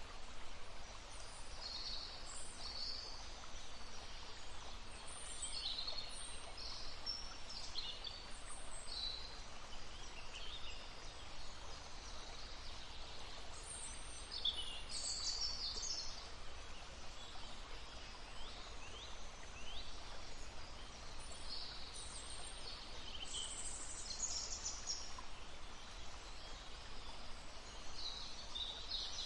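Songbirds chirping and trilling in short, scattered high phrases over the steady babbling of a stream.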